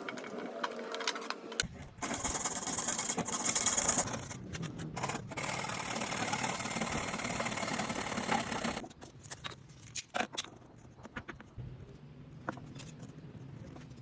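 A small electric power tool running steadily for about seven seconds, starting shortly after the beginning and cutting off suddenly, followed by scattered clicks and knocks of handling the work.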